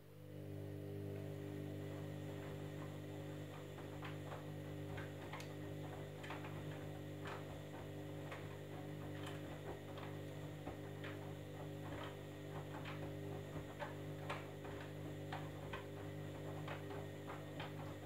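Candy Grand'O Vita front-loading washing machine turning its drum during a wash: the drum motor starts up at the outset and runs with a steady hum, with irregular clicks and taps from the wet load tumbling inside.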